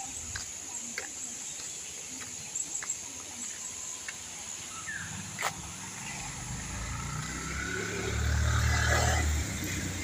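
A motor vehicle's engine approaching, growing louder over the second half and loudest about eight to nine seconds in, over a steady high drone of insects.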